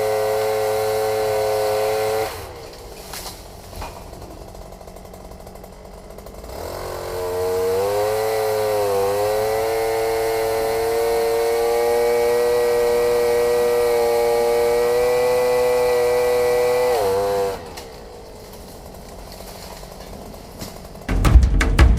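Two-stroke chain saw engine revved high, dropping back to idle about two seconds in, then throttled up again with some wavering in pitch and held high for about ten seconds before falling back to idle. Music comes in near the end.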